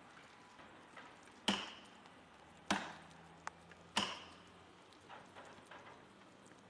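Three sharp, heavy blows struck on wood, about a second and a quarter apart, the first and last with a brief ring after them.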